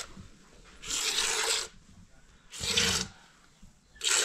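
A cow being milked by hand, jets of milk squirting into a small plastic cup in three hissing spurts about a second and a half apart.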